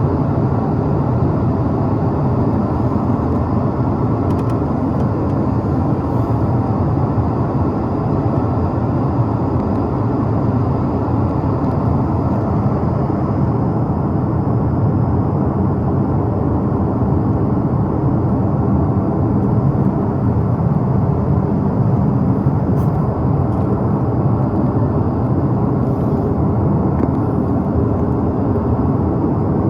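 Steady cabin noise inside an Airbus A330-300 airliner: a constant, deep rush of engine and airflow noise with no change through the stretch.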